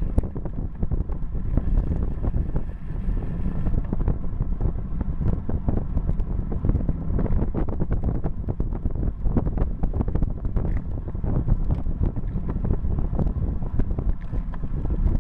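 Wind buffeting the microphone of a bike-mounted camera on a road bike riding at about 40 km/h: a steady low rumble with many small crackles.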